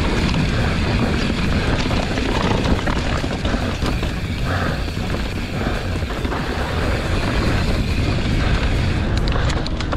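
Mountain bike ridden fast down a dirt trail: wind buffeting the microphone and tyres rumbling over the ground in a steady roar, with a few sharp rattles from the bike near the end.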